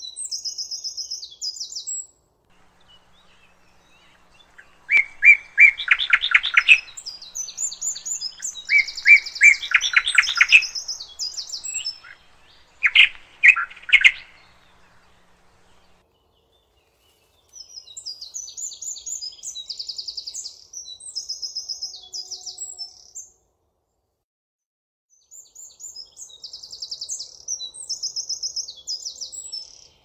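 Songbirds singing: short phrases of fast, high trilled notes recur, and a lower, louder song of rapidly repeated notes comes in three bursts in the first half, with short pauses between phrases.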